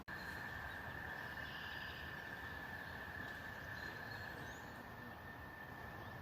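A steady high-pitched insect drone held at one pitch, over faint outdoor background noise.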